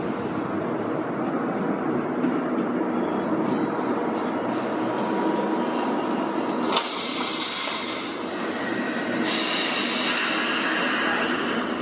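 Automatic couplers of two Deutsche Bahn ICE trainsets coupling over the steady hum of the standing trains: a single sharp clunk about seven seconds in as the coupler heads lock together, then two spells of hissing air.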